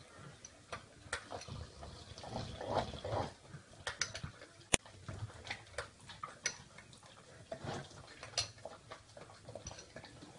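A metal spoon clicking and scraping in a ceramic bowl, with a Rottweiler licking and smacking its lips. The spoon gives a string of irregular ticks, with one sharp click about halfway through.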